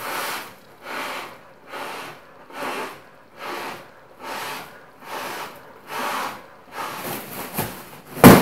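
A man breathing deeply in and out into a clear plastic bag held over his nose and mouth, about one breath a second, the plastic rustling with each breath. It ends in a loud yell near the end.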